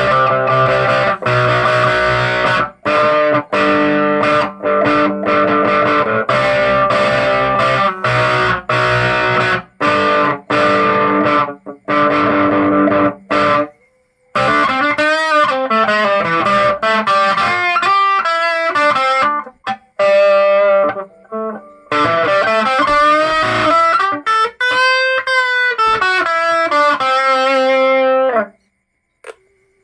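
Electric guitar played through an amp driven into distortion. Short chords with stops for about the first half, then sustained lead notes with wavering bends; the playing stops just before the end.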